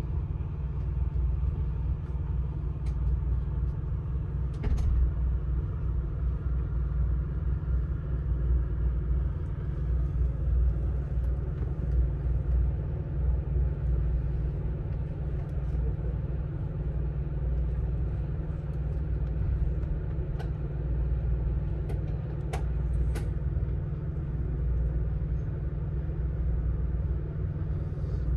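Amtrak California Zephyr passenger car rolling along the rails, a steady low rumble with a few sharp clicks: one about five seconds in and a pair later on.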